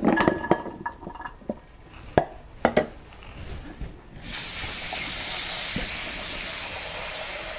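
A few clinks of plastic containers and utensils on the counter. About four seconds in, a kitchen tap runs steadily into a steel pan in the sink for about three and a half seconds, then is shut off.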